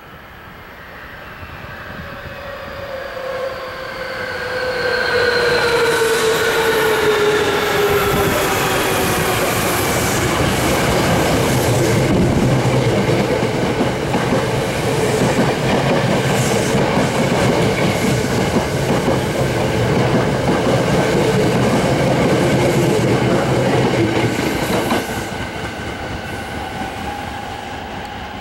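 Hankyu 9300-series electric train running alongside the platform: a whine that falls slowly in pitch at first, then loud steady wheel and rail noise with clickety-clack over the rail joints. The noise drops off suddenly near the end.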